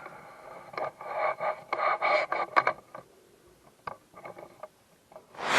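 A pot being slid back onto a greenhouse shelf: about three seconds of scraping and rubbing with a few sharp clicks, then a few faint knocks. Near the end comes a short, loud rush of noise.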